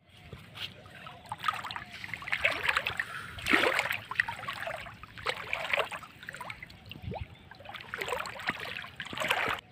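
Shallow river water splashing and sloshing in irregular bursts, as from someone wading through it.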